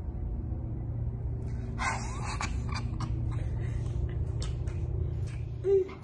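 Steady low rumble of a small room's background noise, with scattered clicks and rustles from about two seconds in and one brief louder bump near the end, typical of a hand-held phone being handled.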